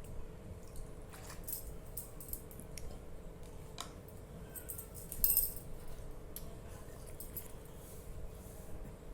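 Scattered light clicks and a brief jangling rattle about five seconds in, over a faint steady hum.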